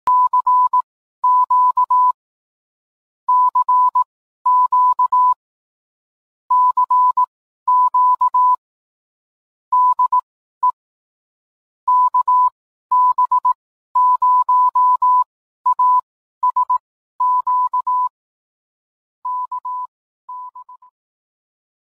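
Morse code sent as a single steady beeping tone, keyed on and off in groups of dots and dashes, growing quieter and fading out in the last two seconds.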